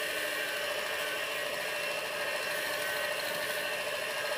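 Small electric bench belt sander running steadily, with a duralumin airgun trigger bar held against the moving belt to smooth and flatten its rough edges, a steady motor whir with sanding hiss.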